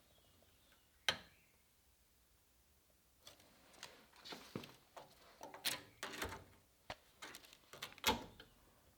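Workshop handling noises of tools and sheet-metal parts: a single sharp knock about a second in, then a run of knocks, clatters and short scrapes from about three seconds in, the loudest knock near the end.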